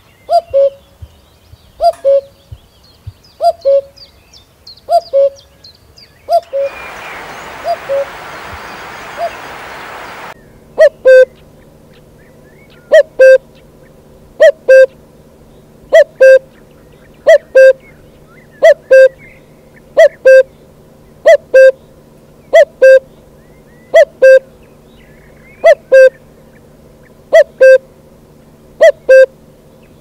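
Caged spotted dove cooing: low two-note coos repeated about every second and a half, loud enough to distort in the second half. A hiss lasts from about six to ten seconds in, then a faint steady hum sits underneath.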